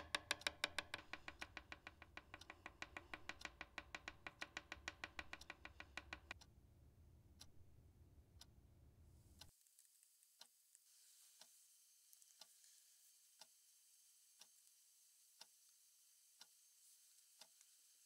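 Quick, even tapping of a pencil on a desk, several taps a second, stopping about six seconds in; then a clock ticking once a second. A low hum underneath cuts off about halfway through, leaving only the ticks and a faint hiss.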